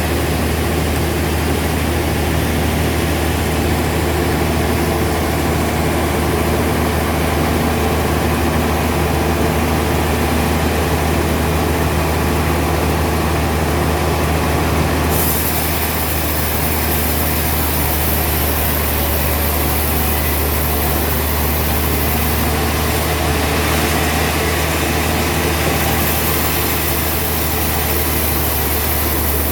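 Heavy sawmill machinery running with a steady low drone. About halfway through, a high hiss comes in and stays.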